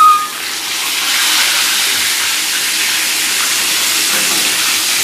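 Fish frying in hot oil in a pan: a loud, even sizzle that starts as the piece of fish goes in and then holds steady. A brief high whistle-like tone sounds at the very start.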